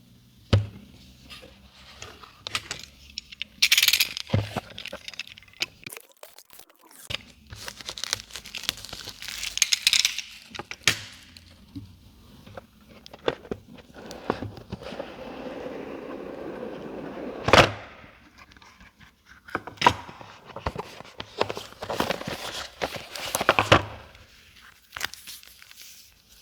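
Hands handling a smartphone's retail box and packaging: scattered taps, knocks and clicks with bursts of rustling. A stretch of steady scraping about fourteen seconds in ends in a sharp click.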